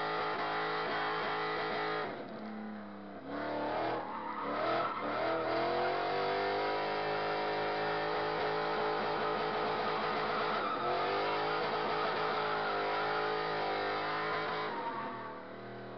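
Drift car's engine revving hard, heard from inside the cabin: the revs hold high, drop about two seconds in, then climb back up. They dip and climb again about eleven seconds in and ease off near the end.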